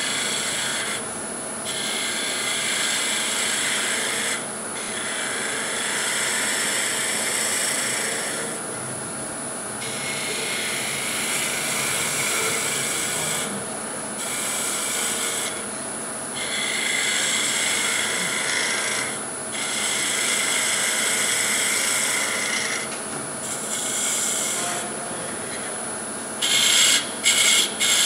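Woodturning tool working wood on a spinning lathe. Long scraping passes of a few seconds each with short breaks between them give way, near the end, to quick short strokes about three a second.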